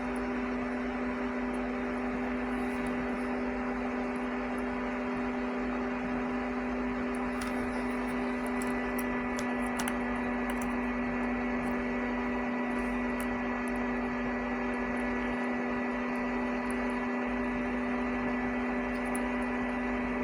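A steady electrical or mechanical hum with a low tone and fainter higher tones over a light hiss, with a few faint light ticks partway through and near the end.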